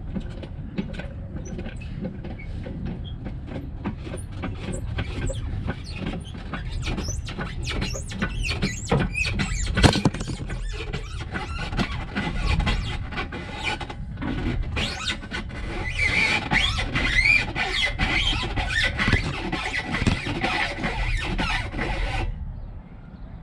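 Engine hoist lifting a diesel engine out of a truck's engine bay: irregular metal knocks and clanks with creaking and squealing. From about two thirds of the way in, a denser stretch of high squealing and scraping stops suddenly near the end.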